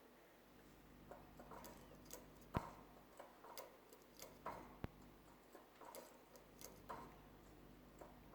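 Faint, irregular light taps and clicks, one every half second or so, of a pet canary hopping about its cage on perches and wire, with two sharper clicks about a third of the way in and a little past halfway.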